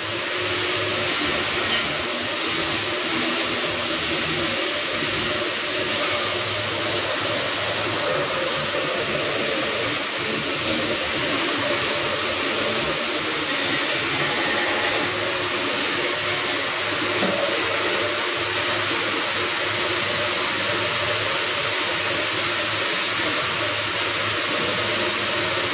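Steady machine hiss with a faint low hum in a steel fabrication shop, unchanging in level.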